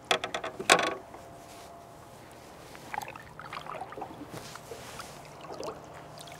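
A hooked threadfin thrashing at the surface against the boat's side: a burst of sharp splashes in the first second, then softer scattered splashes and drips as it is grabbed by hand.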